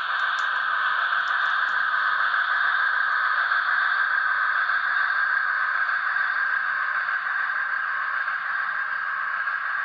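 Broadway Limited model Pennsylvania Railroad T1 4-4-4-4 locomotive running at speed step 3, its Paragon 3 sound system playing a steady hissing steam sound, with a few faint clicks in the first second or two.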